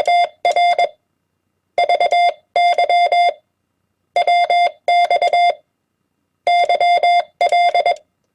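Morse code (CW) sent at 20 words per minute: a steady, fairly high beep tone keyed on and off into dots and dashes. The elements come in short groups, each a word or abbreviation of a ham radio exchange, with brief pauses between them.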